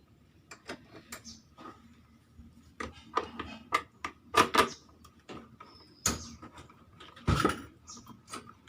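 Tools and scooter parts being handled during repair work: a run of irregular sharp clicks and clinks, with a louder knock about seven seconds in.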